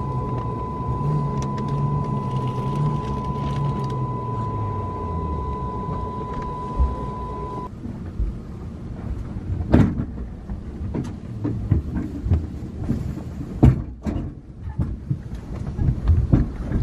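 Inside the cabin of an Antonov An-24RV at the stand: a steady hum with a high, steady whine from the aircraft's systems, and a lower drone that falls in pitch and fades about four to five seconds in. The whine cuts off suddenly about eight seconds in as systems shut down, leaving scattered sharp clicks and knocks in the cabin.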